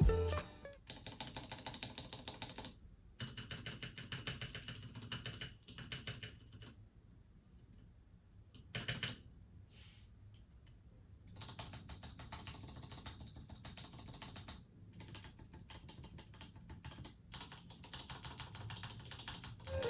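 Typing on a custom tenkeyless mechanical keyboard built from a KPrepublic XD87 kit: quick runs of key clacks, with a pause of a few seconds in the middle broken by a short burst of keystrokes.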